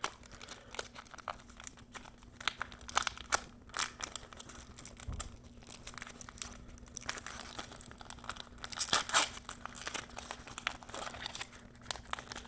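Yu-Gi-Oh foil booster pack wrapper crinkling and trading cards rustling as they are handled, in irregular crackles and scrapes, loudest about nine seconds in. A faint steady hum sits underneath.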